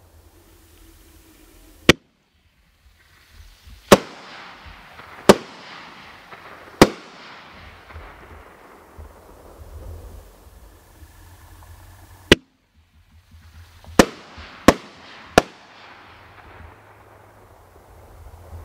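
Triple-break artillery shells from a fireworks cake: a single sharp bang, then three loud bangs about a second and a half apart with a hissing crackle fading after them. About ten seconds later the pattern repeats, with the three bangs closer together. Each shot bursts three times.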